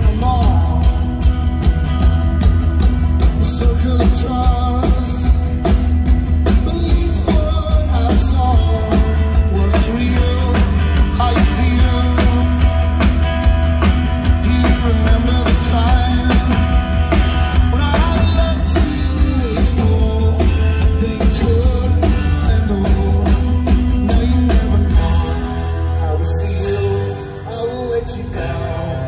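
Live rock band in an arena, heard from the audience: a male singer over guitar, a drum kit and a heavy bass. The drums drop out a few seconds before the end and the music gets softer.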